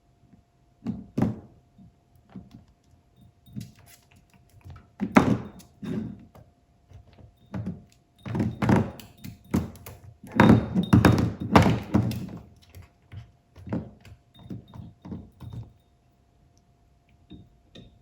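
A dog's plate being knocked and pushed about on the floor by a puppy, giving irregular thunks and clatters. They come in bunches and are loudest a little past the middle.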